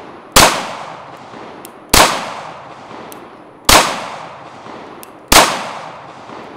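FN 509 Tactical pistol fired in slow, aimed single shots: four shots about 1.7 seconds apart, each with an echo that fades out before the next.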